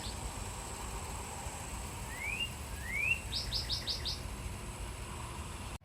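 A songbird singing: two short rising whistles, then a quick run of about six high chirping notes.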